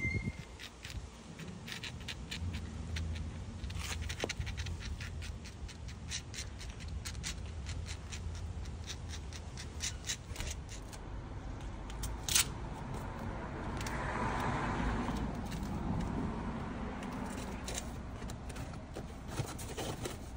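Spatula scraping and tapping on stone paving as a thick stone-cleaner paste is spread, a scatter of small clicks over a low background rumble. About two-thirds of the way through, a broad hiss swells up and fades.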